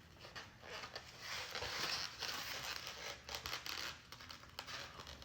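Crinkling and rustling handling noise with many small clicks, strongest in the middle of the stretch, like a paper or plastic food wrapper or container being handled.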